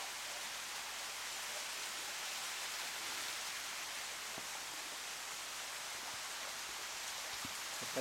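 Steady hiss of a small waterfall's water rushing over rocks, with a few faint ticks.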